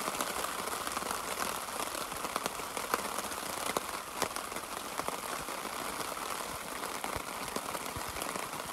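Steady rain falling on a blue plastic tarp overhead, an even hiss with many small drop hits scattered through it.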